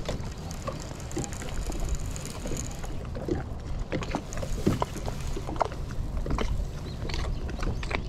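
Water lapping and slapping against the hull of a small boat, with irregular light knocks over a steady low rumble.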